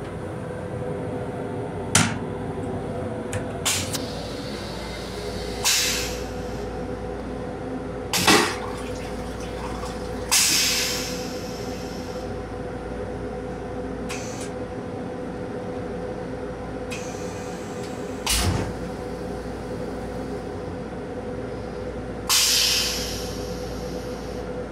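Steady hum of a Metro-North M7 railcar running, heard inside its small restroom. Over it come short hissing rushes that die away within a second or so and sharp clicks, every few seconds.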